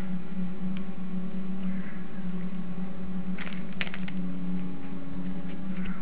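A steady low electrical hum runs throughout, from equipment in the room. About three and a half seconds in there is a short burst of crinkly clicks as the gloved hands handle the ointment tube.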